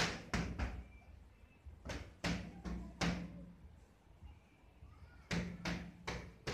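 Boxing-glove punches landing with sharp slaps, in three quick combinations of three or four hits each.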